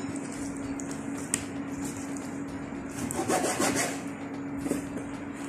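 Gloved hands handling and rubbing raw chicken breast on a plastic cutting board, with one sharp click about a second and a half in and a denser stretch of rubbing in the middle, over a steady low hum.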